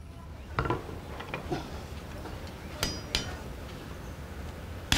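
Hand-forging on an anvil: a few irregular hammer blows on hot steel, each with a short metallic ring.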